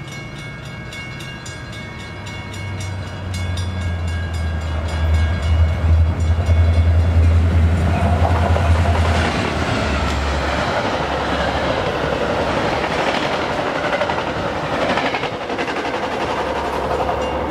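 Metra MP36PH-3S diesel locomotive No. 415 running through at speed: its 16-cylinder engine drone grows louder as it approaches and peaks as it passes. After that comes the steady rushing noise of the passenger cars' wheels on the rails as the train goes by.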